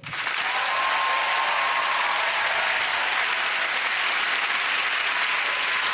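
Studio audience applauding steadily after a live song ends.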